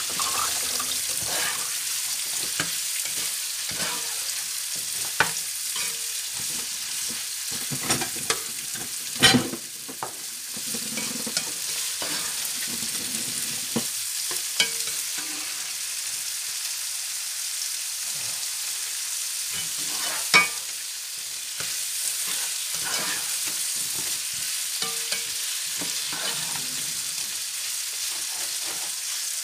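Chopped onions, bell peppers and celery sizzling in oil in a frying pan while a spatula stirs and scrapes them, with scattered sharp taps of the spatula on the pan, the loudest about nine seconds in and again about twenty seconds in.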